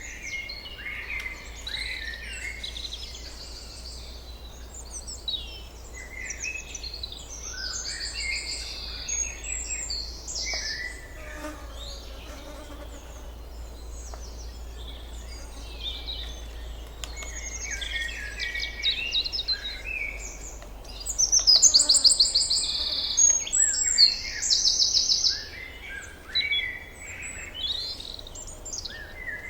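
Several songbirds singing at once: overlapping chirps, whistles and short trills. The loudest are fast, buzzy trills about three quarters of the way through.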